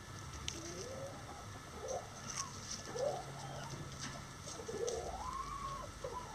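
Bantam chickens making soft, low calls that rise and fall in pitch, several short ones and a longer arching one near the end.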